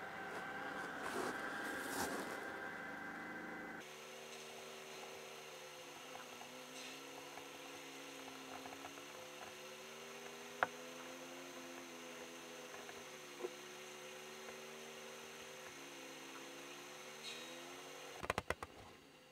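An engine running steadily, its pitch wavering slowly up and down, with a couple of faint clicks. A quick run of clicks near the end breaks it off.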